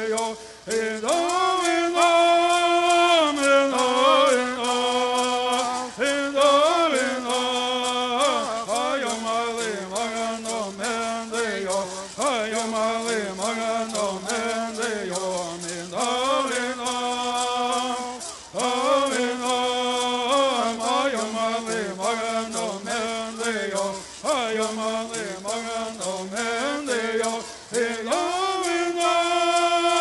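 A group of singers chanting a bird song in unison, to the fast, steady shaking of hand rattles. The song comes in phrases of a few seconds, with short breaks between them.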